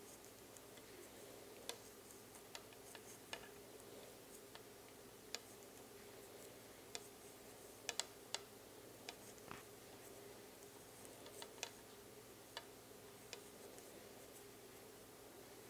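Faint, irregular clicks of wooden knitting needles tapping together as stitches are worked, over a low steady hum.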